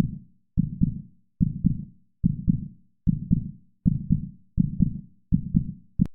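Heartbeat sound effect: deep, evenly paced double beats (lub-dub), one about every 0.8 seconds.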